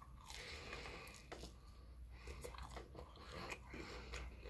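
Crunching bites and chewing of crispy fried chicken, a string of irregular crackly crunches.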